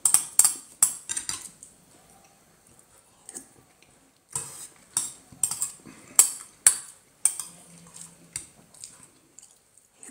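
Metal spoon clinking and scraping against a ceramic bowl while stirring and scooping food: a run of sharp clinks at the start, a pause of a few seconds, then a second, longer run of clinks.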